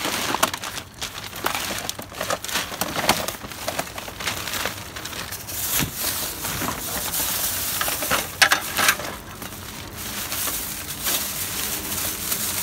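Plastic garbage bags and blister-packaged water faucets crinkling and rustling as hands rummage through them, with sharp crackles throughout and a louder clatter about eight seconds in.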